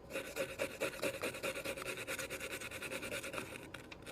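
A small brush scrubbing rapidly back and forth over a soldered circuit board, scouring off old dried solder flux.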